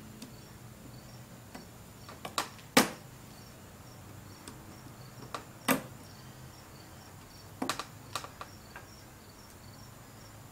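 Boot crimp pliers squeezing a metal band clamp onto a steering-rack dust boot: a handful of sharp metal clicks, the loudest just under three seconds in, with quieter handling noise between them.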